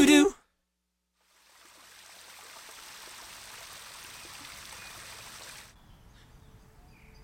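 A small waterfall running over rocks into a pond: a steady splashing rush that fades in after a moment of silence and cuts off suddenly near the end, leaving only faint outdoor ambience. A music track stops abruptly right at the start.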